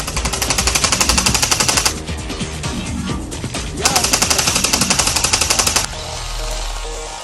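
Two bursts of rapid automatic fire, each about two seconds long, with a short gap between them, over background music with a steady beat.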